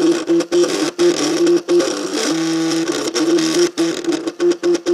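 MakerBot CupCake CNC 3D printer's stepper motors whining at steady pitches as they drive short printing moves. The tone changes from move to move and cuts out briefly between moves, many times.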